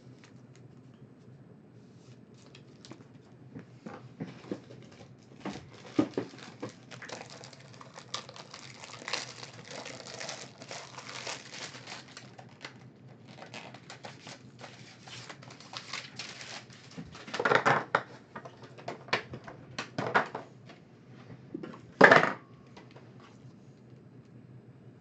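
Trading cards and their packaging being handled on a table: crinkling and rustling with scattered clicks, the loudest crinkles coming in short bursts about two thirds of the way through and again near the end.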